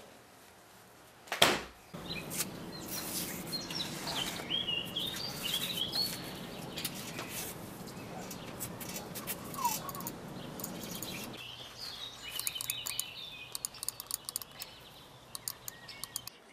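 Small birds chirping, with a sharp knock about a second and a half in and many small clicks and taps from a laptop and mouse being handled on a wooden table, the clicks coming thick and fast near the end. A low steady hum sits underneath and cuts off about eleven seconds in.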